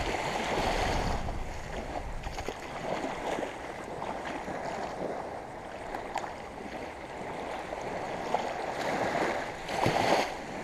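Small waves lapping and water sloshing in the shallows at the shoreline, with wind buffeting the microphone in the first second or so. A louder splash comes near the end.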